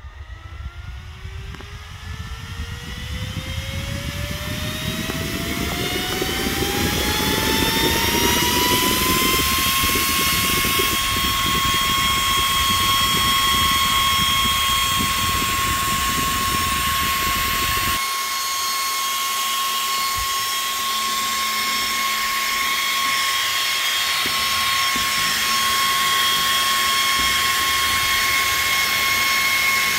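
Small square DC cooling fan spinning up: its whine rises steadily in pitch for about ten seconds, then holds at full speed with a rush of air. About two-thirds of the way through, the low rushing noise drops away and the steady whine is left.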